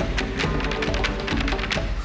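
Irish step dance show music, overlaid with the rapid, sharp clicking of a troupe's hard-shoe steps hitting the stage together.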